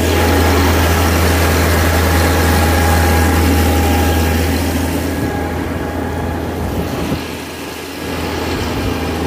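An Amphicar's rear-mounted Triumph four-cylinder engine running steadily as it drives across the lake, with water rushing along the hull.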